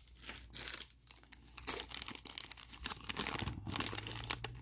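Thin clear plastic bag crinkling as it is handled in the fingers, a dense run of quick, irregular crackles.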